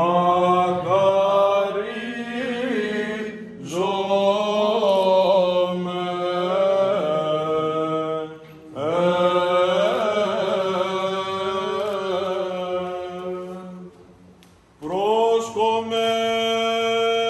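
Male voice chanting Greek Orthodox Byzantine chant in long, ornamented phrases over a steady low held note, pausing briefly between phrases three times.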